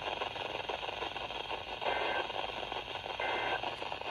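Static-laden NOAA Weather Radio reception (KWO39), hissing steadily. About two seconds in come two short bursts of two-pitch data tone, a little over a second apart: the EAS end-of-message (EOM) tones that close the warning broadcast.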